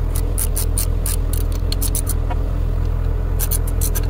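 Ratchet wrench with a 15/16 socket clicking in quick runs on its back-strokes as bolts are turned down, with a pause of about a second and a half in the middle. A steady low hum runs underneath.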